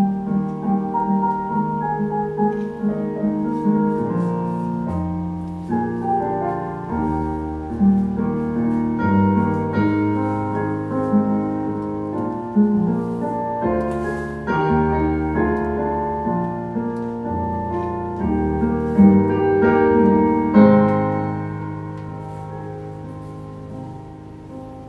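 Keyboard played in a piano voice: slow, sustained chords over a bass line that moves every second or so, growing softer near the end.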